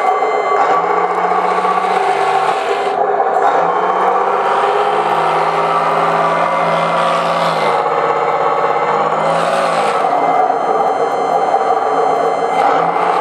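Simulated tank engine sound from a Benedini sound card in an RC SU-100 model, played through its small onboard speaker. It runs steadily while the revs rise and fall several times, along with the clatter of the model's tracks on the wooden floor as it drives.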